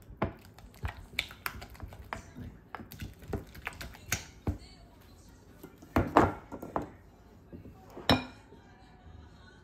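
Silicone spatula stirring and scraping thick cream cheese in a glass mixing bowl, with irregular clicks and taps against the glass. A louder clatter comes about six seconds in, and a sharp clink of a spoon against a sugar jar just after eight seconds.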